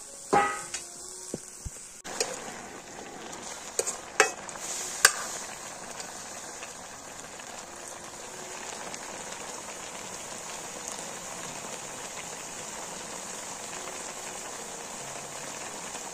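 Sliced green vegetables sizzling steadily in hot oil in a metal wok, with a few sharp knocks in the first five seconds.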